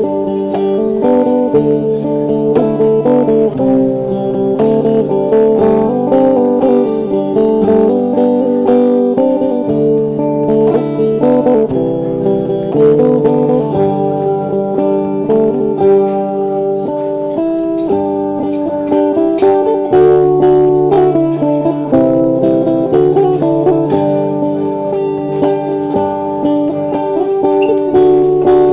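Live Dayak sape (boat lute) playing a plucked melody with an acoustic guitar and a djembe-style hand drum. The lute and guitar notes sit over a low line that changes every couple of seconds, and drum strokes keep time throughout.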